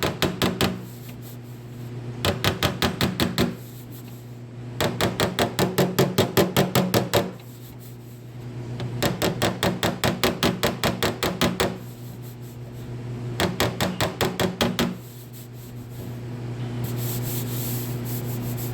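Rapid, evenly spaced tapping on sheet metal in five short bursts of about ten strikes a second, with pauses between: quarter-panel body work being done while the panel is held under pull. A steady low hum runs underneath and grows a little louder near the end.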